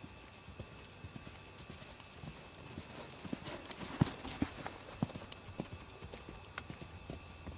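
Pony's hoofbeats cantering on sand arena footing, an uneven run of thuds that grows louder toward the middle, loudest about four seconds in as the pony passes close by.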